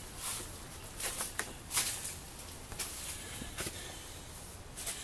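Scattered light clicks, knocks and rustles of a person moving about and handling things by an engine, the sharpest knock a little under two seconds in.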